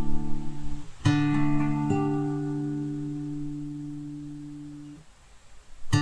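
Nylon-string classical guitar played with the fingers. A chord is struck about a second in, with another note added just after, and left to ring and slowly fade. It dies away almost to nothing before a new chord comes in near the end.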